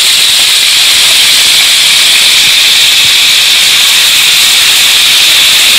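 Marinated chicken pieces sizzling in hot oil in a wok: a loud, steady hiss of frying.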